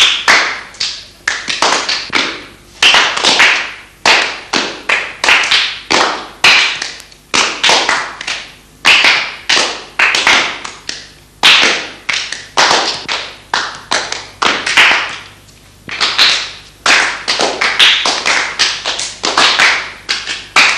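A long run of sharp taps or knocks, about two a second, unevenly spaced, each with a short ringing tail.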